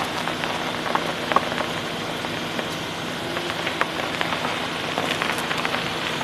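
Hyundai Mistra idling with the steering turned: a steady running hiss with a faint low hum and scattered light ticks. No creak comes from the front-left strut mount, a sign that the retightened top nut has cured the rubbing between the metal cap and the rubber mount.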